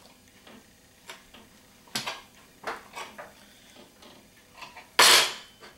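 Knife trimming the edge of a half-moon pastry pie on a floured cutting board: soft scattered clicks and short scrapes of the blade against the board, then a louder scrape about five seconds in.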